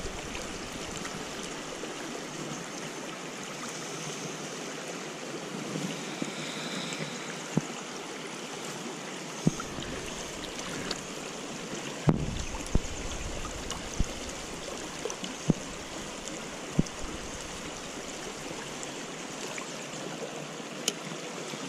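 Shallow river current running over rocks, a steady rush of flowing water. A few short knocks and splashes break through it, from about a third of the way in, as the landing net and the fish are handled in the water.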